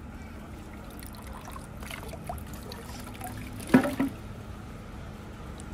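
Thin stream of water trickling from a bamboo spout into a stone tsukubai basin. About two-thirds of the way in comes a short, loud double thump.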